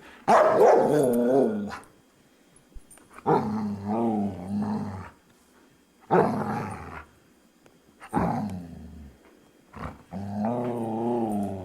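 A dog vocalizing: five drawn-out calls with a wavering, bending pitch, each about one to two seconds long, with short pauses between them.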